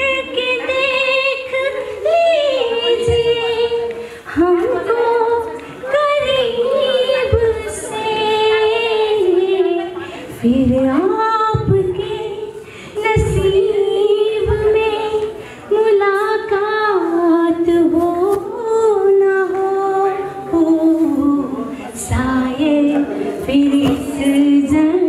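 A woman singing a slow, melodic song with long held notes and sparse accompaniment, a few low thumps under the voice.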